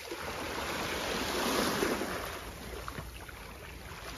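Small sea waves washing over a rocky, seaweed-covered ledge; the wash swells a little about halfway through, then eases.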